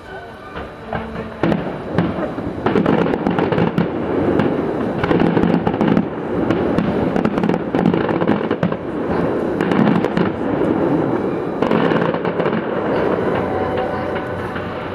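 Aerial firework shells bursting in quick succession: a dense run of bangs and crackling that builds about a second and a half in and thins out near the end.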